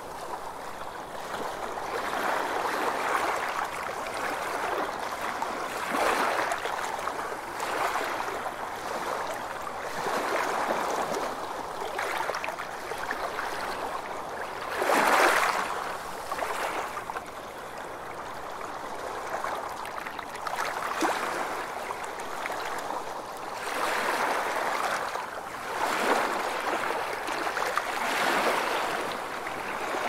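Small sea waves washing onto a pebble shore and against rocks, each wash swelling and falling back every two to three seconds, with one louder wave about halfway through.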